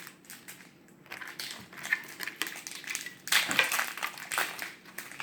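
Foil Pokémon booster pack wrapper crinkling and crackling as it is opened and handled, loudest a little past three seconds in.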